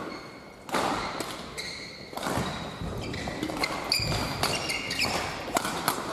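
Badminton doubles rally: racket strings striking a shuttlecock every second or two, with sharp shoe squeaks and footsteps on the court mat between shots.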